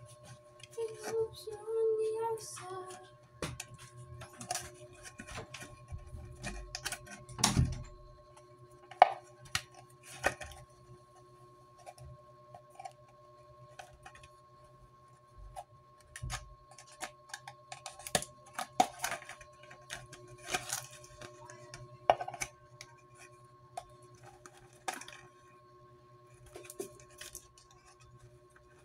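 Thin clear plastic drink bottles and cut bottle pieces being handled and fitted together by hand, giving irregular crinkles, clicks and taps, with a heavier knock about seven and a half seconds in.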